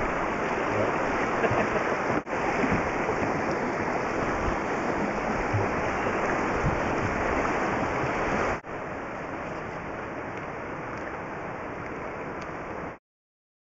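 Rushing water of a large, fast-flowing river, a steady hiss with wind rumbling on the microphone. The level drops at a cut about two-thirds of the way in, and the sound cuts off to silence just before the end.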